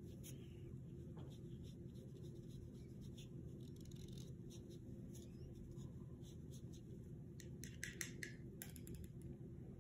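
Faint scratching of a paintbrush on construction paper, with a quick cluster of clicks and taps about eight seconds in as the brush goes into a plastic water cup.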